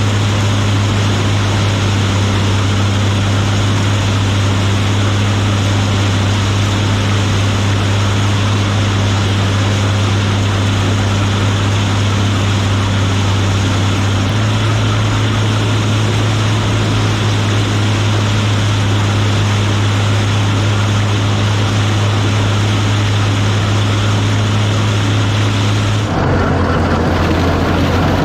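Gleaner combine running steadily while harvesting corn, a loud low engine drone with threshing noise over it. Its note steps slightly higher about halfway through and drops lower near the end.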